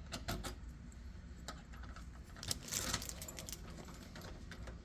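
Keys jangling with light scattered clicks, the brightest rattle about two and a half to three seconds in.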